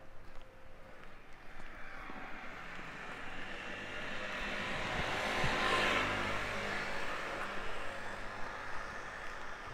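A vehicle passes by. Its sound builds over a few seconds, is loudest a little past the middle, and fades away.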